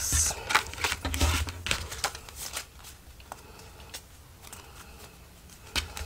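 Paper rustling, with a few light taps and clicks, as a pleated paper accordion piece is folded closed and pressed flat on a cutting mat; the handling grows quieter after about three seconds.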